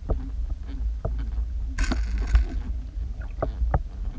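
Underwater sound picked up through an action camera's waterproof housing: a steady low rumble of moving water with irregular clicks and knocks. A brief hiss comes about two seconds in.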